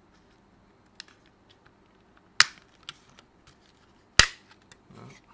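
Plastic latches of a PS5 DualSense controller's shell snapping loose as it is pried apart: two sharp, loud snaps about two seconds apart, with a few lighter clicks between. The clips are stiff, as on a controller that has never been opened.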